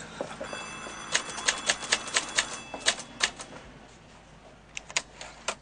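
Portable manual typewriter being typed on: keys striking in an irregular run of sharp clacks, thinning out a little past halfway, then a few more strokes near the end.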